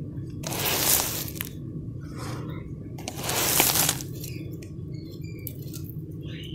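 Dusty crumbled bars being crushed and dropped by hand in a plastic basin: two gritty, crunchy bursts, about half a second in and again around three seconds in, with small scattered crackles between and after them.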